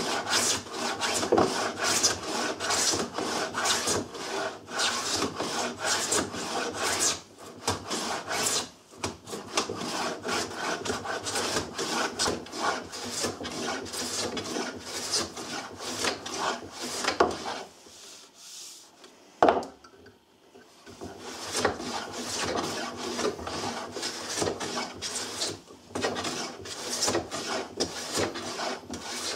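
A metal hand plane run on its side along a shooting board, shaving the edge of a wooden board in quick repeated strokes, each a rasping scrape of the blade and sole on wood. The strokes stop for a few seconds past the middle, broken by one sharp knock, then carry on.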